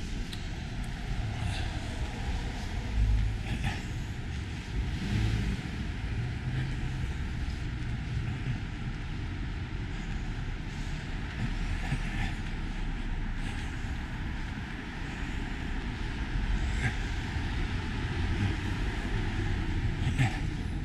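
Street traffic: cars driving along a city street, a steady low rumble with scattered faint clicks, and a brief louder low thump about three seconds in.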